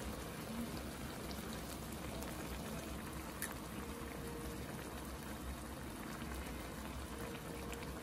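Thick red kimchi and bean-sprout stew with rice bubbling and popping steadily as it boils in a shallow pan.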